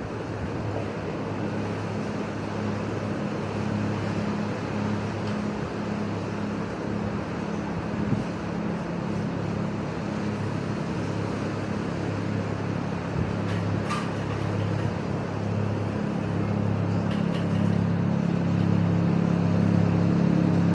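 An engine running steadily with a low, pulsing hum over a constant rush of wind and surf, growing louder near the end.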